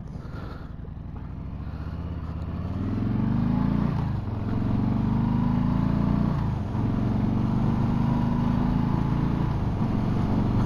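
Harley-Davidson Street Bob's Milwaukee-Eight 107 V-twin, breathing through a Miller aftermarket exhaust, pulling away and accelerating. Its note rises for about four seconds and drops back briefly twice, at upshifts about four and six and a half seconds in, then settles to a steady cruise.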